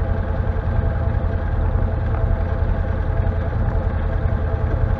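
Can-Am Defender HD10's Rotax V-twin engine idling steadily while the UTV sits stopped.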